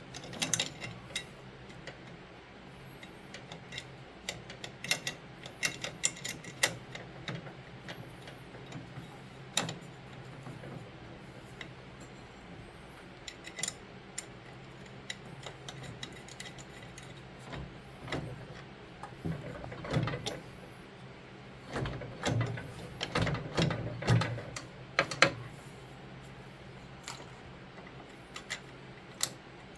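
Scattered metal clicks, taps and clinks of bolts and hand tools being handled while bolts are fitted into the friction wheel of a snowblower's drive. There is a busier stretch of handling noise about two-thirds through, over a steady low hum.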